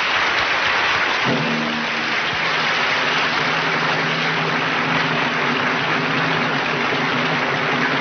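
Studio audience applauding steadily. About a second in, music starts underneath the applause with sustained held notes.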